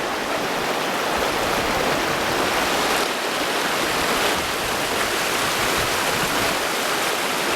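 A creek rushing: a steady, loud wash of flowing water.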